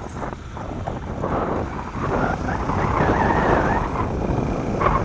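Wind buffeting the microphone on a moving off-road vehicle, over the rumble of the vehicle travelling along the road; the noise grows louder about two seconds in.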